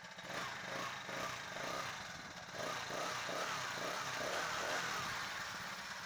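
Small engine of a motorized bicycle running steadily.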